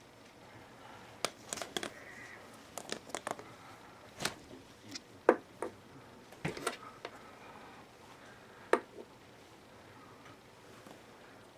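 Irregular light knocks, taps and short rustles, a dozen or so over about six seconds with one more sharp knock near the end: the handling and scrabbling noises of play with a cat.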